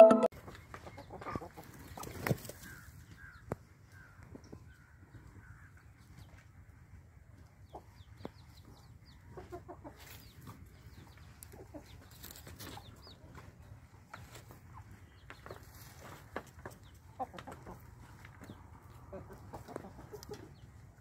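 Chickens clucking faintly now and then, in short scattered calls, with occasional clicks and rustles in between.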